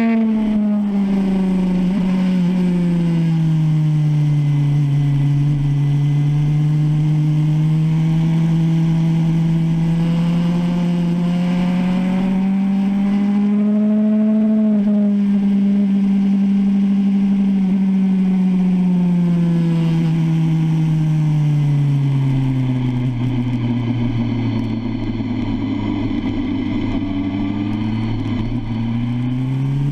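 BMW S1000RR's inline-four engine at high revs, heard from on board at speed. Its pitch sweeps slowly down and back up with the throttle, drops to its lowest a few seconds before the end, then climbs again.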